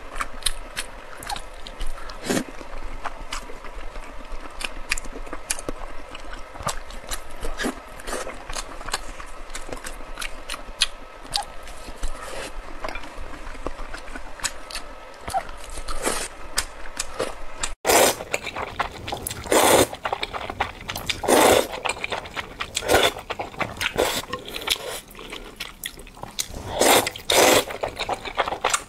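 Close-miked chewing of pork belly: wet, sticky mouth clicks and smacks. About 18 seconds in it changes to louder noodle slurping, long sucking bursts repeated every second or two.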